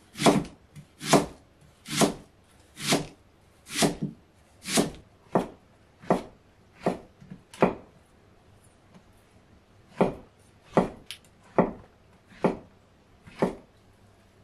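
Kitchen knife cutting down onto a cutting board in slow, steady strokes, just under one a second: about ten cuts, a pause of about two seconds, then five more.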